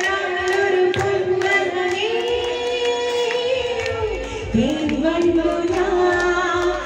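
A woman singing long held notes into a microphone over music with a steady beat. About four and a half seconds in, her voice slides up into a new held note.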